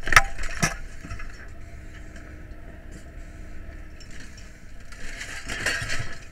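Handling noise on a firefighter's worn camera: two sharp knocks about half a second apart at the start, a steady low rumble, and a scraping rustle near the end.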